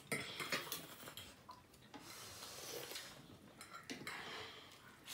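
Eating noises from noodles being slurped, with a sharp click at the start and small scrapes and clicks of chopsticks and a fork on plates and a bowl.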